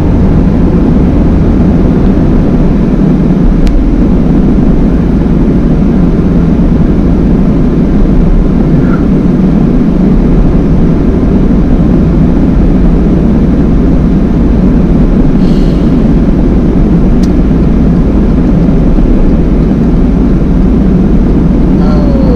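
Van driving on the road: a steady low rumble of engine and tyre noise heard from inside the cabin.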